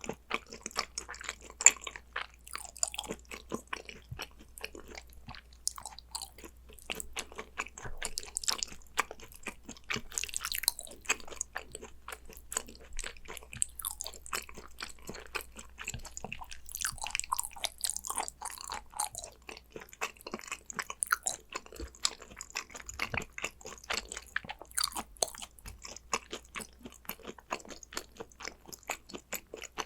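Close-miked chewing of gochujang-dressed raw beef tartare (yukhoe), a continuous run of wet, irregular mouth clicks and smacks.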